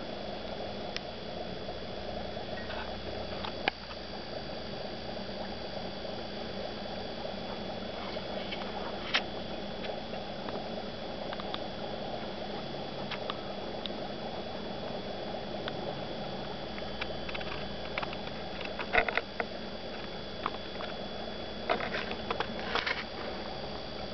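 Running aquarium: steady water and equipment noise with faint high whines, and scattered small clicks and pops, a few sharper ones about two-thirds of the way through and near the end.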